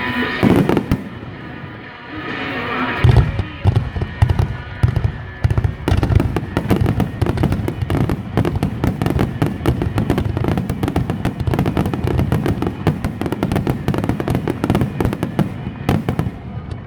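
Rapid-fire fireworks barrage (a starmine): after a single boom early on, a dense, continuous run of bangs and cracks sets in about three seconds in and lasts until near the end, over music from loudspeakers.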